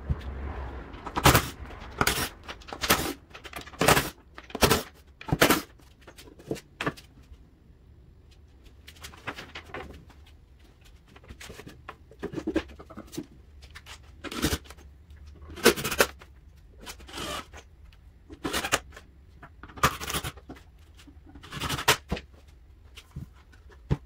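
Sharp knocks and taps on wood as a wooden birdhouse is handled and assembled. They come about one a second for the first several seconds, then at scattered moments.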